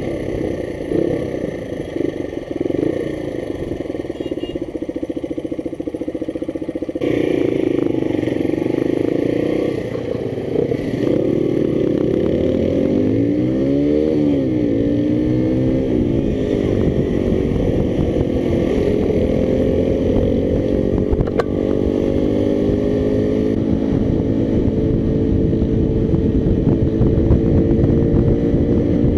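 Motorcycle engine running under way, heard from the bike itself with wind rush on the microphone. The engine note shifts with throttle and gear changes, then climbs steadily as the bike accelerates over the last third.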